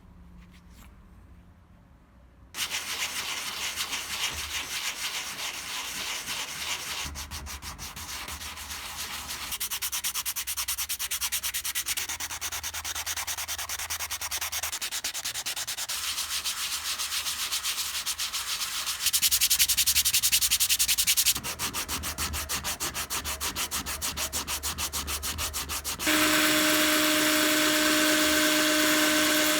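Sandpaper rasping against a workpiece in quick strokes, starting after a couple of quiet seconds and going on in several takes. Near the end, a power tool's steady motor whine comes in with the rasping.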